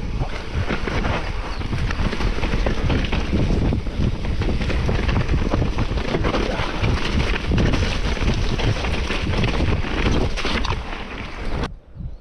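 Wind buffeting the microphone over the steady clatter of a mountain bike riding a rough trail, cutting off suddenly near the end.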